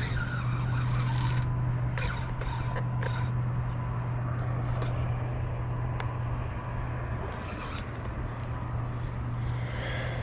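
A steady low hum at one unchanging pitch, with a few faint clicks over it.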